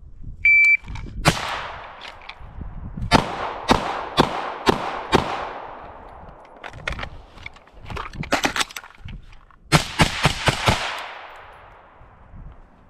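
A shot timer beeps once, briefly, about half a second in, then strings of rapid gunshots follow from a BCM 11.5-inch AR-15 carbine and a 9mm Glock 19 pistol during a timed drill, each crack trailing off in echo, with short pauses between the strings.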